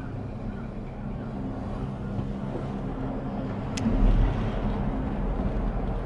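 Steady low hum and rumble inside a ropeway gondola cabin as it runs down along its cable, with a sharp click a little before the middle of the second half and a brief louder low rumble just after it.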